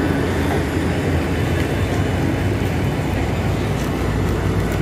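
Boeing 737 jet engines running on the airport apron: a steady, loud roar with a heavy low rumble.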